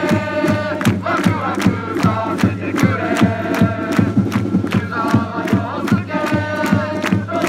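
Football supporters' crowd singing a player's chant in unison to a steady beat, the sung phrases rising and falling in held notes.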